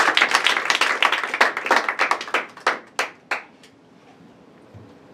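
Audience applauding, the clapping thinning to a few scattered claps and stopping about three and a half seconds in.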